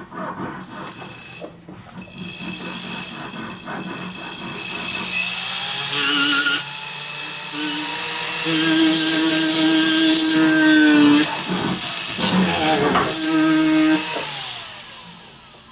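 Jeweler's rotary handpiece spinning a ball burr against a gold casting, grinding out the rough edges of a porosity hole. Its whine rises and falls in pitch as it speeds up and slows, dropping away about eleven seconds in and again near the end.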